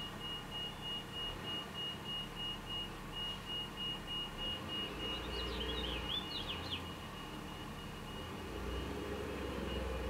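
Male house finch singing a short burst of quick warbling notes about halfway through. Behind it, a steady high-pitched beep repeats about twice a second.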